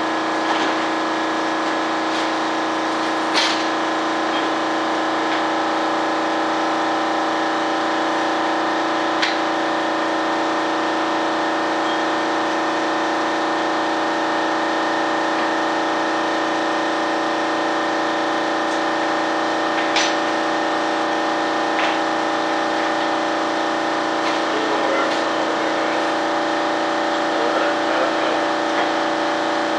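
Shop air compressor running steadily with a continuous mechanical hum. A few sharp clicks of handwork sound over it.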